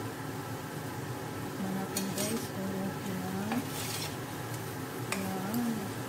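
A metal spoon stirring chicken feet in a sticky sauce in a pot, scraping and clinking against the pot several times over a steady low sizzle.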